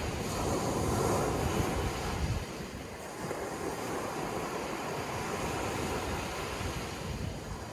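Ocean surf: a louder wash of breaking waves for the first couple of seconds, easing off about two and a half seconds in to a steadier, softer rush of water.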